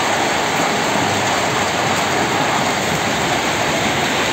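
A hailstorm: hail and rain coming down hard on a paved street, a dense, steady patter.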